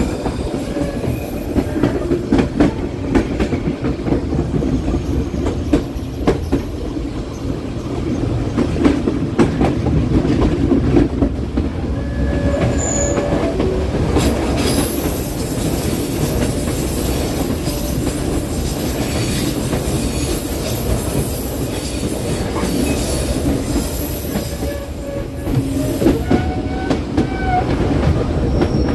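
Passenger train running through tight mountain curves: a steady rumble with clacking wheels, and from about halfway through until near the end a high, steady squeal of wheel flanges grinding on the curved rail.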